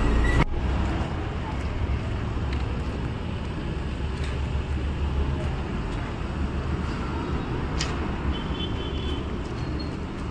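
Steady wind and road rumble of a motorcycle underway on the highway, cutting in abruptly about half a second in.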